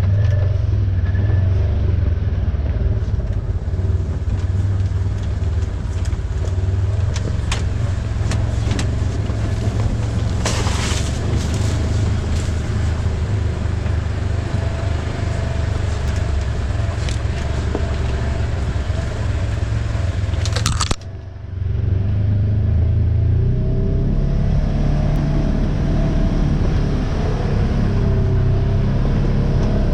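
The engine of an old Ranger running steadily under way on a rough trail, with scattered knocks and rattles, several of them clustered about ten seconds in and again just before twenty-one seconds. The sound drops briefly about 21 seconds in, then carries on.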